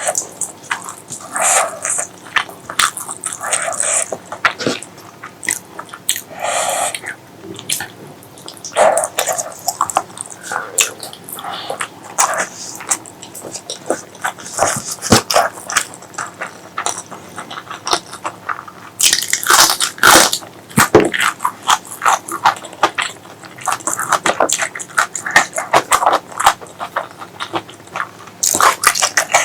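Close-miked mouth sounds of eating spicy pork leg curry with rice: wet chewing, smacking and biting in an irregular stream of sharp clicks, with a loudest run of smacks about two-thirds of the way through.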